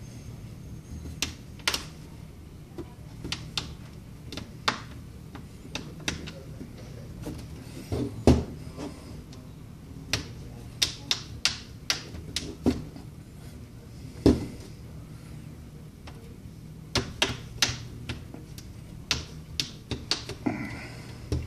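Plastic clicks and snaps at irregular intervals as a plastic pry tool works around the edge of a Samsung Galaxy Tab 4's snap-fit back cover, releasing its clips. Two snaps, about 8 and 14 seconds in, are louder than the rest.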